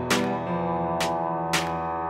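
Background music: sustained chords with three sharp accents, about half a second to a second apart.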